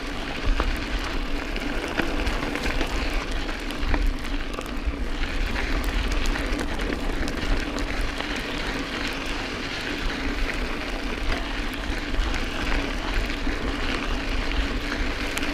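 Mountain bike rolling over a loose, rocky dirt trail: tyres crunching on gravel, with many small clicks and rattles from stones and the bike. Wind rumbles on the camera microphone, and a steady hum runs underneath.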